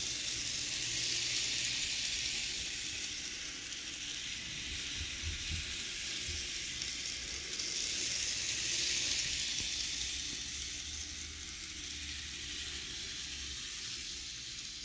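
Z scale model subway train running on its track: the tiny motor and wheels make a steady high whirring hiss that swells twice, near the start and about halfway through.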